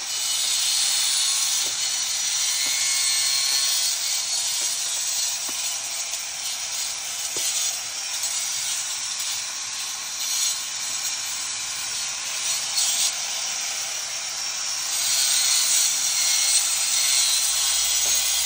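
Angle grinder cutting out old mortar from the joints of red brickwork to prepare it for repointing: a steady, high grinding hiss that wavers as the disc works along the joint and grows louder in the last few seconds.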